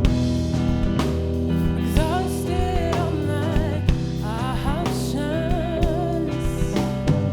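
A soulful song: a woman's voice sings long notes that waver and bend up and down, over a steady band accompaniment with guitar.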